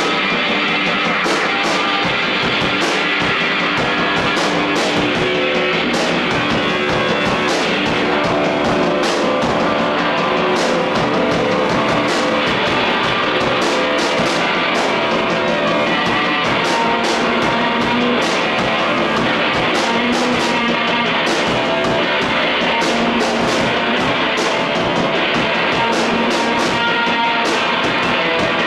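Rock band playing live: loud, dense music with a steady, driving beat and no let-up.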